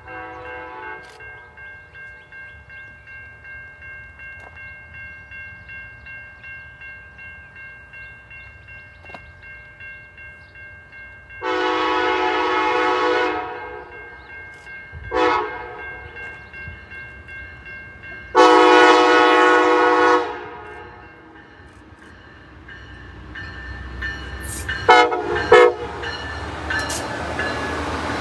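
Amtrak passenger train's horn sounding as it approaches: a faint blast fading out early, then two long blasts with a short one between them, then two sharp short blasts. After that comes the rising rush and clatter of the train's wheels and bilevel cars passing close by, with some wheel squeal.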